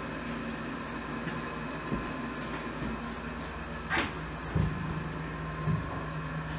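A steady low hum with a few light knocks and taps, one about two seconds in and a small cluster around four to six seconds in.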